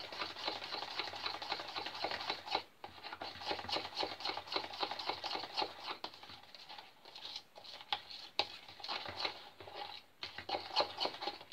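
A spoon stirring pancake batter in a plastic measuring jug: a quick run of small clicks and scrapes as it knocks round the sides, pausing briefly twice.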